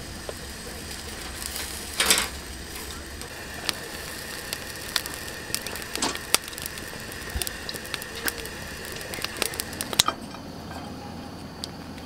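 Sausages and dried squid grilling on a wire-mesh grill over a gas burner: a steady hiss with scattered sharp pops and crackles, and a louder crackle about two seconds in.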